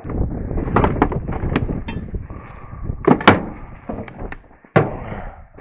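Rummaging through a cluttered toolbox: objects scraping and shuffling, broken by several sharp knocks and a loud clank about three seconds in.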